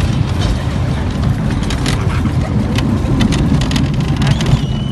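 Amusement-park ride car rumbling along with a steady low roar and many short clicks and knocks. A thin, high, steady squeal comes in near the end.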